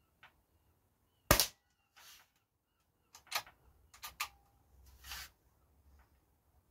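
Silenced JS200 air rifle fired once about a second in: a single sharp crack. Later come a few sharp metallic clicks, one leaving a faint ring, and a short rasp as the action is worked.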